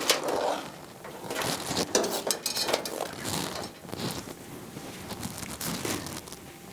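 Handling noises as computer parts are moved about: irregular light knocks, clicks and rustling.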